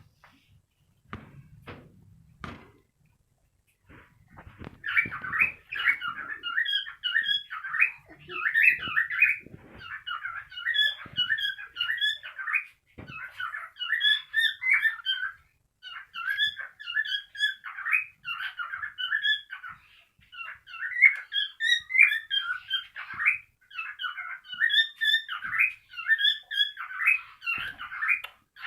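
Cockatiel chirping and whistling in rapid, busy phrases of a second or two with short breaks between them, starting about four seconds in after a few faint knocks.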